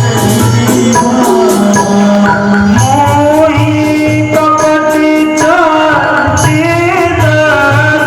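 Devotional song: a voice singing long, ornamented notes that glide between pitches, over sustained instrumental tones and a steady hand-drum beat.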